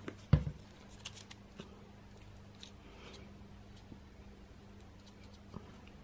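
Cardboard pieces being handled and pressed together on a tabletop: one sharp knock about a third of a second in, then light rustles and small taps of cardboard, over a steady low hum.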